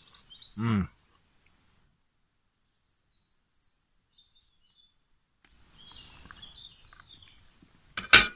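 Small birds chirping faintly and intermittently. A man makes a short voiced sound about half a second in, and a sharp knock comes near the end.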